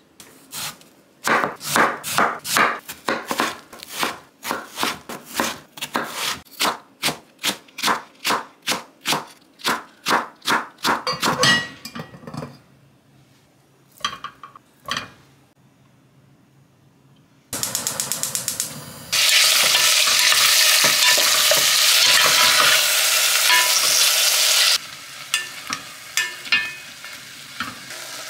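A knife chopping on a wooden cutting board, about three strokes a second, for some ten seconds. After a short pause, beef for soup goes into a hot pot and sizzles loudly, dropping off suddenly before a wooden spatula knocks and scrapes the meat around.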